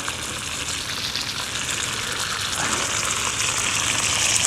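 Minute steaks sizzling in hot oil in a frying pan on a gas camping stove, a steady frying hiss that gets a little louder near the end.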